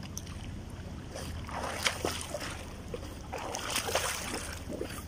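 Water splashing as a swimmer does butterfly strokes, in two surges of splashing about two seconds apart as the arms come over and hit the water.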